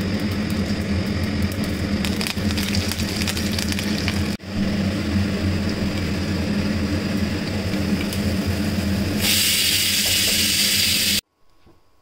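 Kitchen mixer grinder running with a steady motor hum and a gritty grinding crackle. It cuts out for a moment about four seconds in, turns brighter and hissier near the end, then switches off abruptly.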